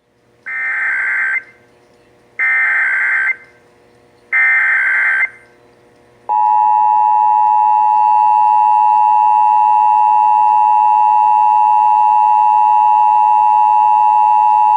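Emergency Alert System required monthly test. It opens with three short bursts of SAME header data, each about a second long with a second's gap between them. About six seconds in the two-tone attention signal (853 and 960 Hz) starts, and it is held steady for about eight seconds until it cuts off at the end.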